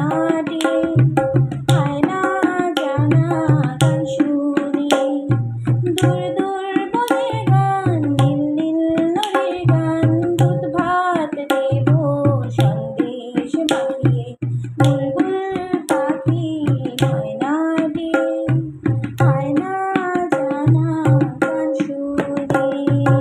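A woman singing a Bengali song to tabla accompaniment. The tabla's deep bass strokes come in a repeating rhythm under the voice, over a steady held drone note.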